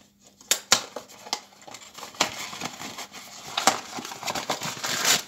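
Black foil blind bag of a Funko Mystery Mini crinkling and crackling as it is handled, with sharp crackles that grow denser toward the end.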